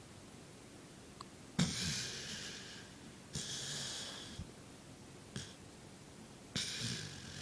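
Snoring: three rasping, hissy snore breaths, the first about a second and a half in, each starting abruptly and fading away over about a second.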